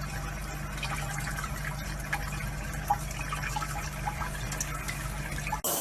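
Water trickling and dripping, with faint scattered drips over a steady low hum.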